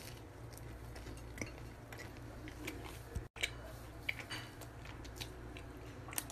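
A person chewing a mouthful of toast spread with clotted cream, with scattered small crunchy clicks over a steady low hum. The sound cuts out briefly about three seconds in.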